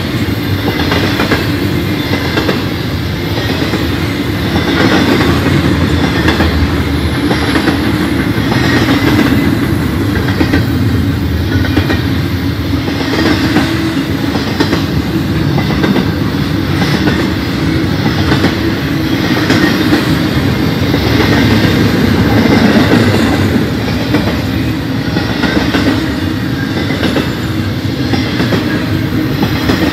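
Loaded intermodal freight train cars carrying semi-trailers rolling steadily past close by: a continuous loud rumble of steel wheels on rail with a regular clatter as the wheels pass over the track.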